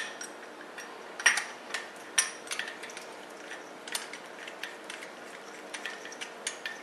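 Light, irregular metallic clinks and ticks as a chrome distributor hold-down clamp and its bolt are fitted and threaded in by hand, with a few sharper clinks in the first couple of seconds.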